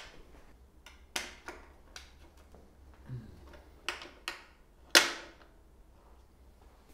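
A bearing press tool on a bicycle's press-fit bottom bracket shell, pressing in the bearings: about six sharp metal clicks and clacks as the tool is fitted and turned. The loudest is about five seconds in.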